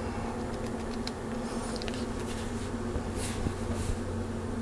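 Steady hum and fan noise from a bench of running electronic test instruments, with a couple of faint rustles about a second and a half in and again past the three-second mark.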